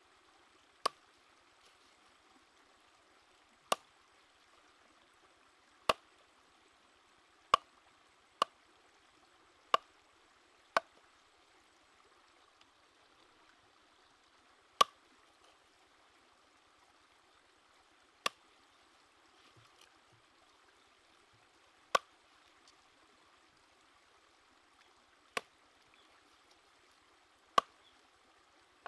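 Knife chopping through raw chicken onto a wooden chopping board: about a dozen single sharp strikes, spaced irregularly one to four seconds apart.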